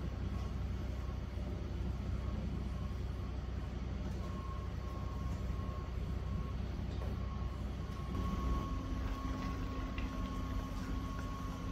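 A steady low mechanical hum with a thin, steady whine, alongside a wok of noodles and vegetables being stir-fried with a wooden spatula. A second, lower steady tone joins about eight seconds in.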